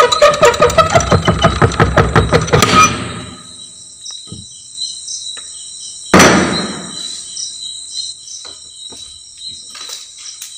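A rapid loud rattling, about eight strokes a second, for the first three seconds. Then crickets chirping steadily, with a single loud thud about six seconds in, as a door swings open.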